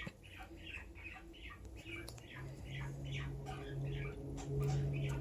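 Bird chirping: short high chirps repeating at about three a second. A low steady hum joins from about two seconds in.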